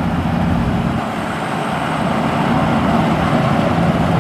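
Rice combine harvester running steadily as it cuts and threshes standing paddy, a constant engine note with mechanical noise over it.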